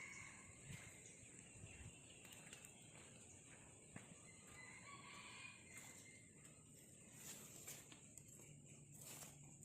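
Faint rooster crowing, heard twice, over a steady high-pitched hiss.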